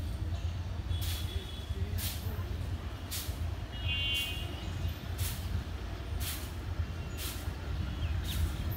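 Steady low rumble of an approaching WDM3A diesel-electric locomotive (ALCO 16-cylinder engine), still far off. Brief high-pitched sounds come every second or so, and a short high call sounds about four seconds in.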